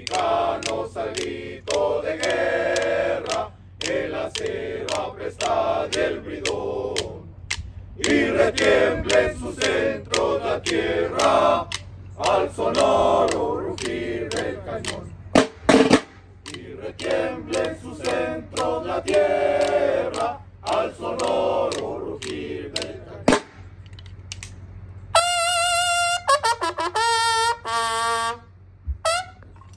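Mexican Army war band soldiers singing together in unison, with a few sharp clicks. Near the end bugles sound a short call of several separate notes.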